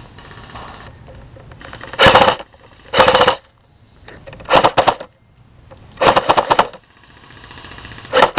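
Airsoft rifle firing five short full-auto bursts, each a rapid string of shots lasting about half a second, with the last burst right at the end.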